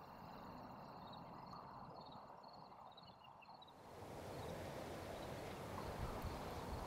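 Faint outdoor salt-marsh ambience: small high-pitched chirps repeating over a steady high faint buzz. About four seconds in, a soft rushing of wind through the marsh grass rises and carries on.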